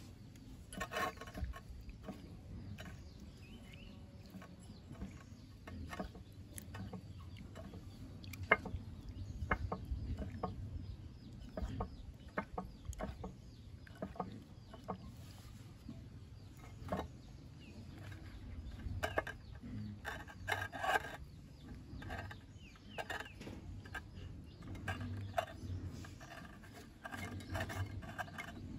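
Scattered clicks and knocks from hands working aloe vera pieces in a bowl of water and setting a cut banana flower into it, with chickens clucking in short bursts about a second in, around two-thirds through and near the end.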